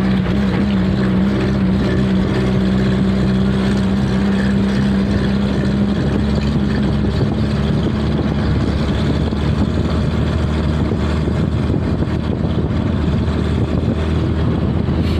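Steady engine hum over a broad rushing noise; the hum's highest tone fades about halfway through.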